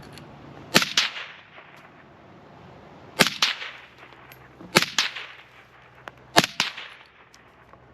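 Suppressed Kel-Tec P50 5.7×28mm pistol firing four single shots, a second or two apart, each shot a sharp crack followed a split second later by a second, fainter report.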